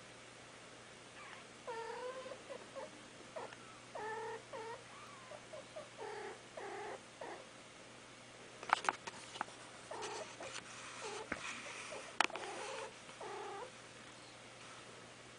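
Mother cat calling softly to her kittens with a string of short chirping calls, a comforting sound she makes only for her litter. A few sharp clicks come in the middle.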